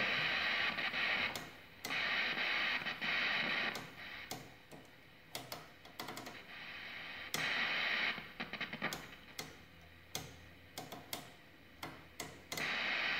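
Static hiss from a 1948 Sentinel 400TV portable television, cutting in and out in stretches of a second or two with scattered clicks and crackles between them. Static getting through is a sign that the set's tuner is working at least somewhat.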